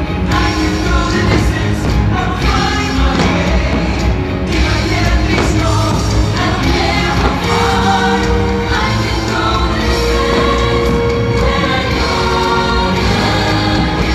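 Fireworks show soundtrack: loud music with voices singing in chorus and long held notes.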